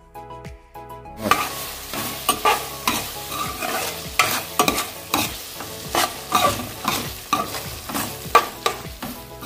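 Soft background music, then from about a second in a thick chicken gizzard curry sizzling in a metal pot while a metal spatula stirs it, scraping and knocking against the pot many times.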